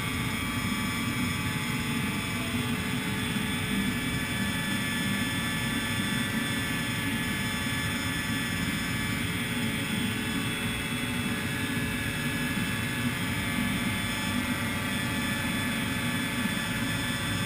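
A steady mechanical drone with a low rumble and a thin high whine, holding at an even level throughout.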